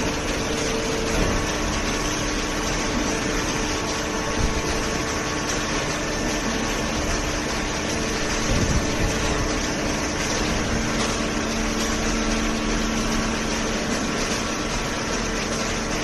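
Waste paper baling line running: the horizontal cardboard baler and its inclined feed conveyor give a steady mechanical hum with a few held tones over an even noise.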